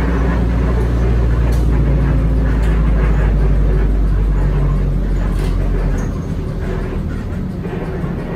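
City bus heard from inside the cabin while it is moving: a steady low engine rumble with road noise and a few light rattles. The rumble drops off about six seconds in as the engine eases.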